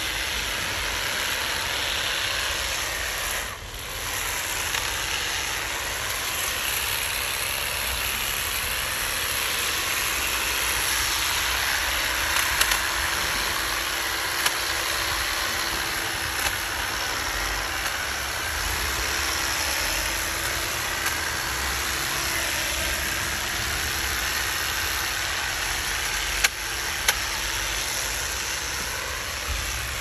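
Pole hedge trimmer running steadily as its cutter bar works over a shrub, with a brief dip about three and a half seconds in and a few sharp clicks scattered through.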